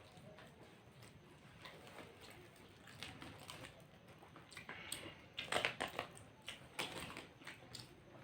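People chewing and biting into fried snacks such as cutlets and samosa, with soft crackly crunches and clicks, loudest a little past halfway.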